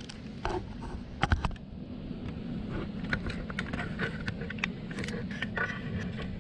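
Small clicks and knocks of parts and tools being handled on a workbench, with one sharper knock about a second in and a run of light ticks near the end, over a steady low hum.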